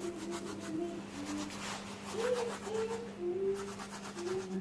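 Thyme being crushed between the hands: quick, even rubbing strokes of palm on palm, fading out near the end, over a steady low hum.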